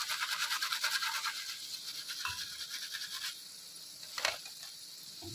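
Flour-coated potato fries deep-frying in hot oil, a fine crackling sizzle that fades after about three seconds. Near the end there is a single sharp click.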